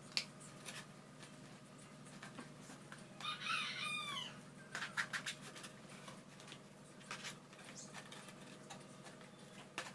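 A rooster crows once, a curved call of about a second starting about three seconds in. Scattered light clicks and taps and a steady low hum run throughout.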